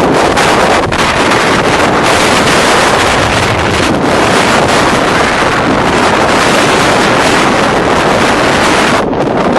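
Strong storm wind blowing hard across the microphone: a loud, continuous rush with a deep buffeting rumble. The high hiss briefly drops away near the end.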